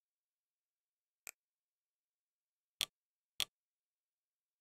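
Fire TV menu interface clicks: one soft click about a second in, then two louder, sharper clicks about half a second apart near the three-second mark, as the on-screen search is navigated and a suggestion selected.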